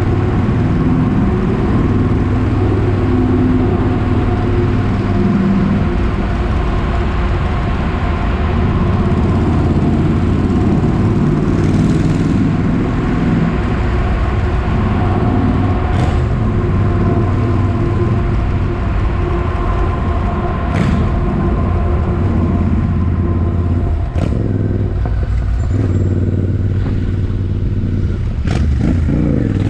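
Royal Enfield Interceptor 650's 648 cc parallel-twin engine and exhaust running steadily and loud, with a few brief sharp clicks along the way.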